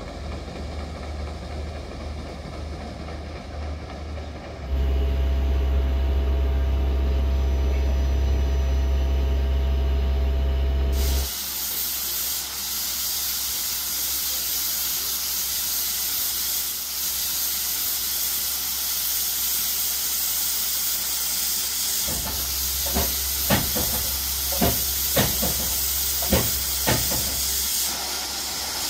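Steam hissing steadily from an 1887 Krauss steam tram locomotive, setting in about eleven seconds in, with a series of sharp knocks near the end. Before the steam starts there is a low steady hum that gets louder about five seconds in.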